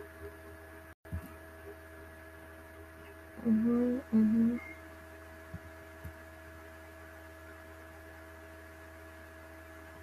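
Steady electrical mains hum on the recording. About three and a half seconds in, a person gives a short two-syllable hum.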